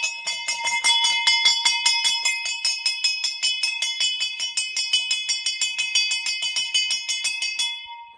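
Small hanging brass temple bell rung rapidly and continuously, its clapper striking about five or six times a second with a bright, steady ring. The ringing stops near the end and the tone dies away.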